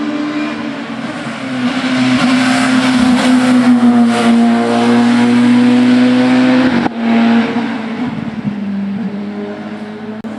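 Race car engine at high revs going past at speed, its note held strong for several seconds. About seven seconds in the sound drops sharply, then carries on quieter.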